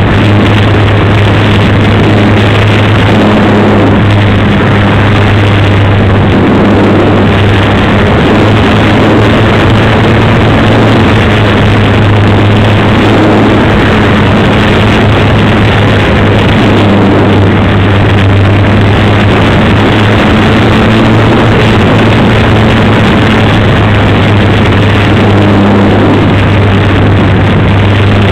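Dynam Super Cub RC model plane's electric motor and propeller running steadily in flight, a low hum under heavy wind rush on the onboard camera's microphone, very loud and distorted, its pitch wavering slightly with throttle.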